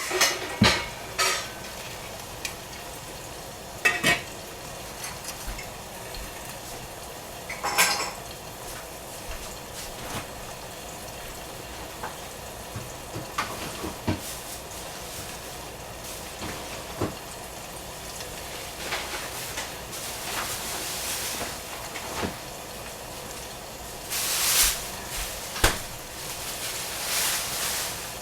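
Food sizzling in a pan on the stove, with scattered clinks and clatters of cookware and utensils and a few louder bursts of clatter and sizzle near the end.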